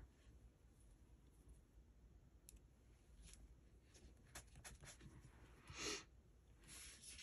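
Near silence with faint scattered clicks and light paper rustles as a sticker is set onto a planner page with tweezers and pressed down by hand; a short, slightly louder paper rustle comes about six seconds in.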